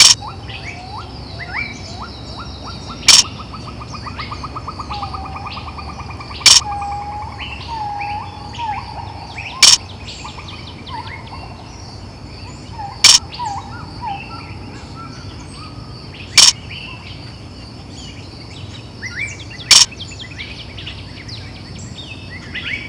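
Birds chirping and calling, including a fast trill a few seconds in, over a steady high-pitched tone. A sharp click cuts in about every three seconds and is the loudest sound.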